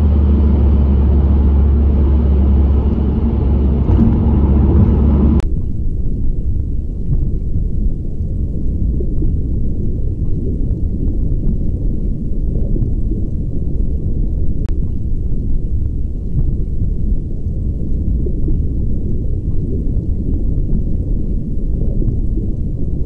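Road and engine noise inside a car at motorway speed: a steady low drone. About five seconds in it cuts off suddenly to underwater ambience, a low, muffled, churning rumble with nothing high in it.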